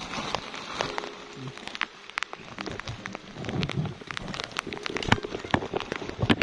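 Rustling and crackling of a woven plastic sack of land crabs being handled, a dense run of short clicks and scrapes.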